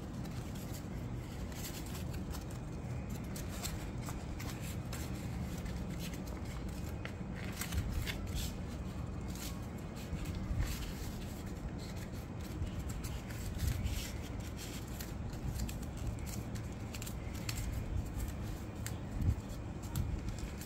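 A sheet of paper being handled and creased by hand while folding a paper plane: scattered crinkles and rubbing over a steady low hum.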